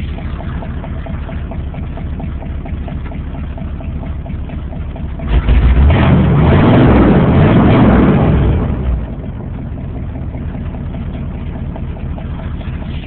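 Carbureted Chevy 400 V8 in a K10 pickup idling steadily, its first run after sitting six days. It gets much louder for about three seconds midway, then settles back to idle.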